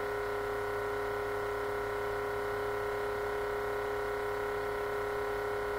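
Steady electrical hum made of several constant tones, unchanging throughout, with no other sound.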